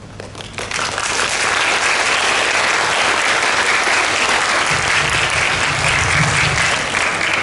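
Audience clapping. The applause swells up within the first second and then holds steady, with some low thumping partway through.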